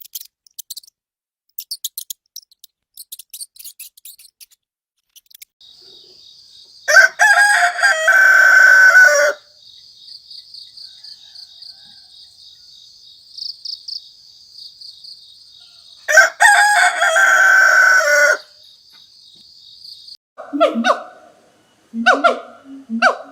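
A rooster crowing twice, each crow about two and a half seconds long and the loudest sound here, over a steady high buzz. Faint high ticks come before the crows, and a different animal's shorter, lower calls begin near the end.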